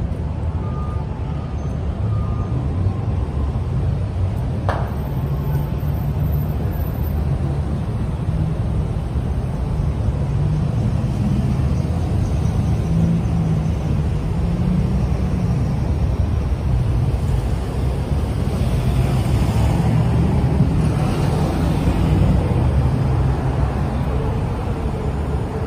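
Road traffic of cars and SUVs passing through an intersection: a steady low rumble of engines and tyres on wet pavement. The hiss swells for a few seconds about two-thirds of the way through as vehicles pass close, and there is one short click about five seconds in.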